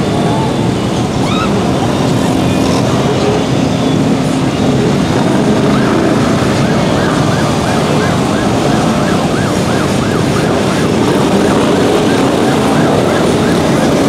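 Off-road vehicle engines running in a deep mud-water pit, a steady dense din. From about six seconds in, a siren-like warble rises and falls about twice a second until near the end.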